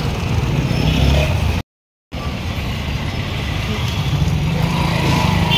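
Street traffic: motor vehicle engines and road noise running steadily. The sound cuts out completely for about half a second, roughly a second and a half in.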